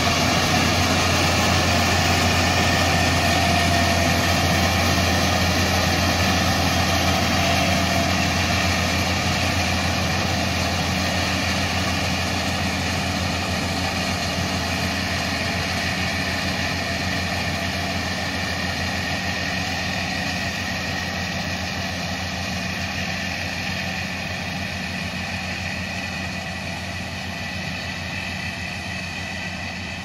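Kartar 4000 combine harvester running steadily while harvesting, its engine and machinery giving a constant low hum. The sound slowly fades as the machine moves away.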